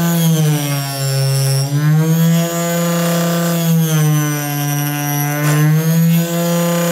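Homemade table saw driven by a 12 V 775 DC motor, running with a steady whine. Its pitch sags briefly a few times, most clearly at about a second and a half and about four seconds in, and then recovers, as the blade cuts a small piece of MDF board.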